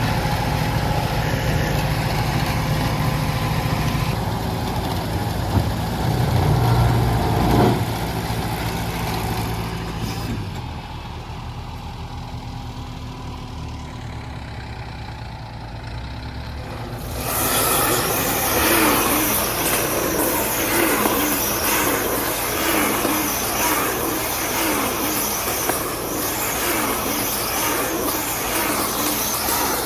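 Tractor engine running under load with a KUHN i-BIO+ baler-wrapper combination working. The sound drops abruptly about a third of the way in, then turns louder and busier with machine rattle a little past halfway.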